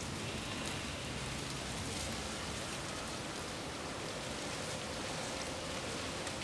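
Steady wind blowing, an even rushing noise with a few faint ticks.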